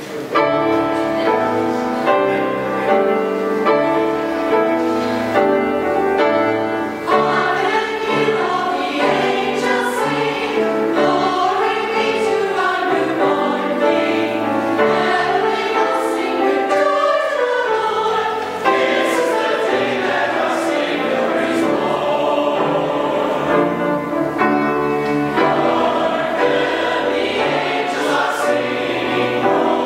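Mixed choir of men's and women's voices singing together in harmony, coming in all at once just after the start and holding sustained chords that move from note to note.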